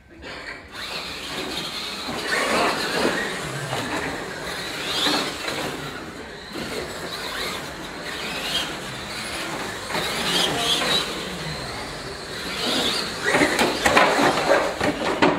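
Radio-controlled monster trucks racing, their motors and drivetrains whining up and down in pitch as they speed up and slow down, loudest near the end.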